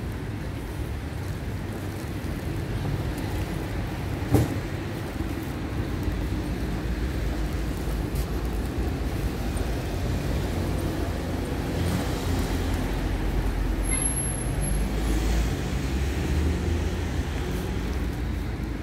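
Steady low rumble of city traffic, with one sharp click about four seconds in and a brief high-pitched squeak later on.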